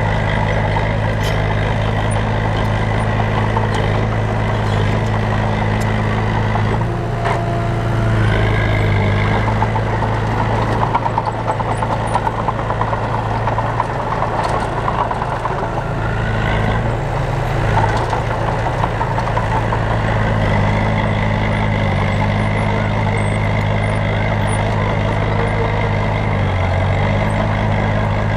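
Heavy diesel engines of earthmoving machinery running steadily, with a brief change in the engine note about seven seconds in.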